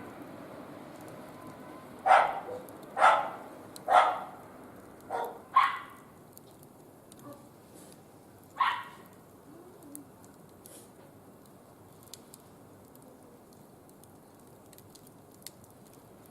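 An animal calling in short, loud calls: five about a second apart, then one more about three seconds later.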